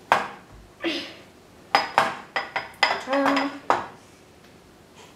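A spoon knocking and clinking against the stainless steel bowl of a stand mixer, about ten sharp knocks in the first four seconds, as butter is knocked off the spoon into the bowl.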